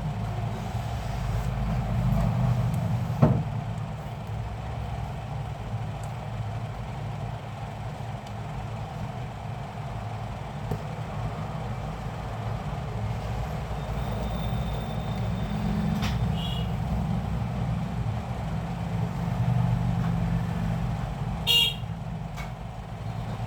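Steady low rumble of road traffic, with a sharp click about three seconds in and a short high toot near the end.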